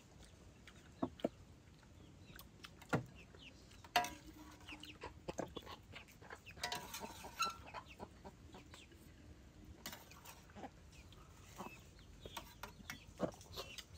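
Chickens clucking faintly in the background, with scattered clinks and taps of a ladle, chopsticks and bowls.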